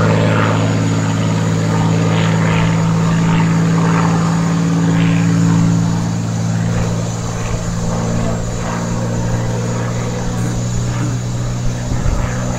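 A Spitfire's piston engine and propeller heard from the ground as it flies a display: a steady low hum that eases a little about halfway through.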